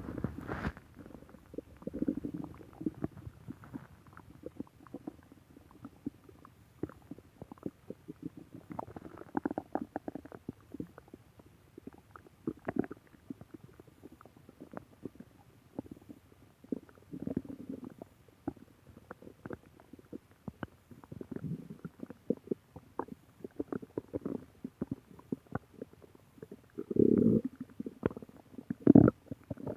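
Human stomach growling and gurgling: a steady string of short gurgles and pops, broken by fuller rumbles, the loudest two near the end.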